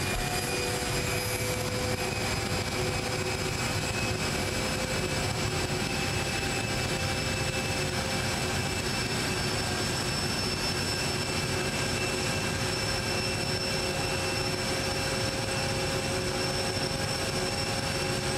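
Jet aircraft engines running on the apron: a steady rushing roar with a high, unchanging whine over it.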